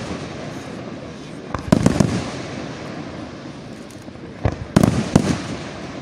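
Professional aerial firework shells bursting in two volleys, the first about one and a half seconds in and the second near five seconds, each a quick run of several sharp bangs. A continuous hissing rumble from the display carries on between them.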